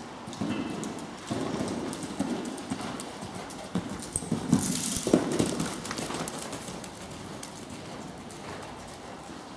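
Horse cantering on indoor arena footing, its hoofbeats thudding irregularly. A few sharper, louder knocks come about four to five seconds in, then the hoofbeats fade.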